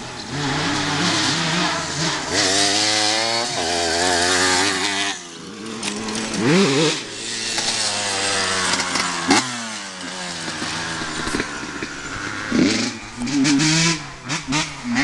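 Motocross dirt bike engine revving and easing off again and again as it is ridden, its pitch rising sharply several times, notably around the middle and again near the end.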